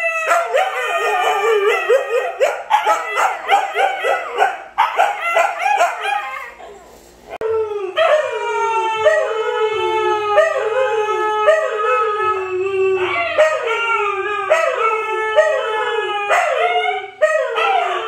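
Siberian huskies howling together, their calls swooping up and down in pitch and overlapping. After a brief dip about seven seconds in, husky puppies take over with a run of short howls that each fall in pitch, about one a second.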